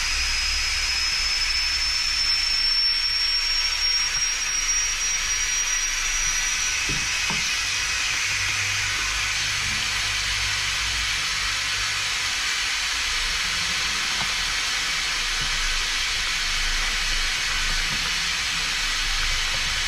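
Steady hiss, with a faint high whine that rises slowly in pitch over the first several seconds and a low hum underneath.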